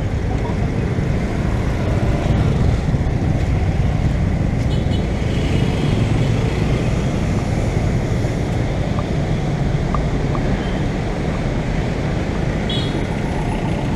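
Road traffic of cars and motorcycles running, a steady low rumble of engines and tyres close by.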